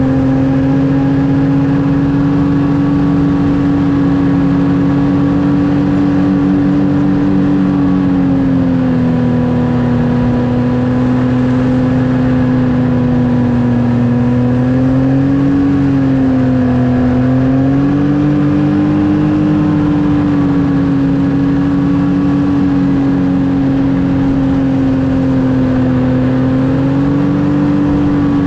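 Snowmobile engine running at a steady cruising speed. Its pitch holds nearly level, dipping and rising slightly a few times.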